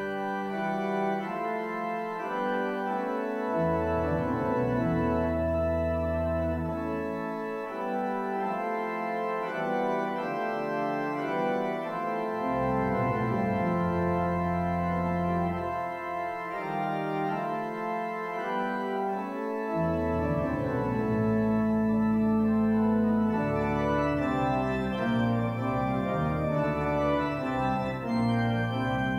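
Organ playing a slow piece of held chords, with deep bass notes that drop out and come back in every few seconds.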